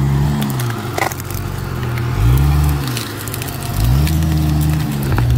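A Jeep's engine revving up and easing off three times while crawling over trail obstacles, with scattered sharp cracks and crackling underneath.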